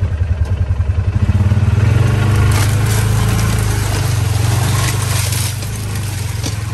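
Vehicle engine running under load. It pulses at first, picks up revs after about a second, then runs steadily. A rush of scraping noise comes partway through.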